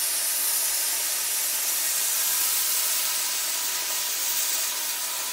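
Cutting torch hissing steadily as it cuts through steel pipe along a template.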